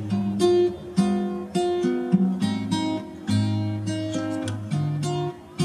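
Background music: an acoustic guitar playing plucked notes and chords at an even pace.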